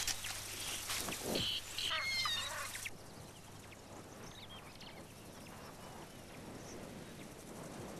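African wild dogs feeding at a kill, with high twittering chirps and tearing noises over the first three seconds. After about three seconds it drops to a faint background with a few weak chirps.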